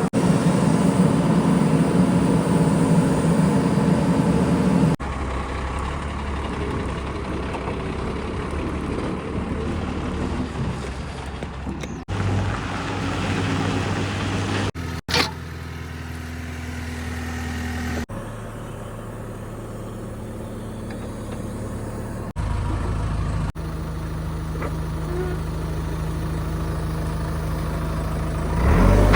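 Diesel engines of earthmoving machines running steadily at work, in several short stretches joined by abrupt cuts, each with its own steady engine note.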